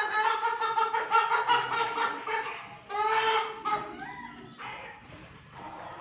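An animal's long drawn-out call, rising at its start and held steady for nearly three seconds, followed by a second, shorter call about three seconds in.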